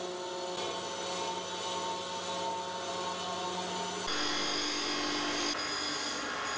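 Super Brown 350 cold saw running with a steady motor hum while steel seat stays are cut. About four seconds in it gives way to a bench grinder with a wire wheel running with a steady whine.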